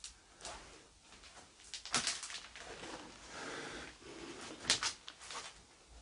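Scattered sharp clicks and knocks with soft rustling, from someone moving about and handling things in a cluttered room. The two loudest clicks come about two seconds in and again near the five-second mark.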